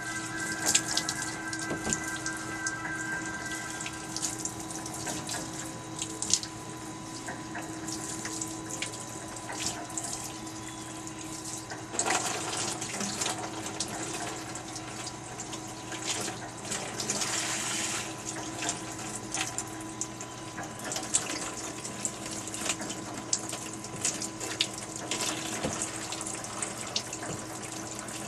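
Water running steadily from a tap or sprayer, over a steady low hum, with scattered clicks and knocks throughout.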